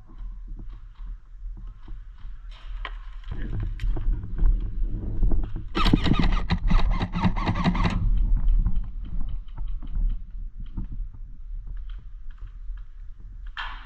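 Footsteps and rustling of clothing and gear picked up by a body-worn action camera, over a steady low rumble. The sound builds in the middle, with a louder two-second patch of crackling rustle about six seconds in.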